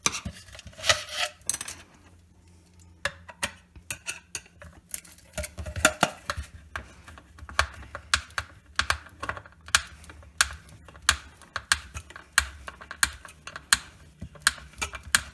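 A run of light, sharp clicks and taps, several a second, as a sheetrock screw is tightened with a hand screwdriver through a plastic jar into a wood block.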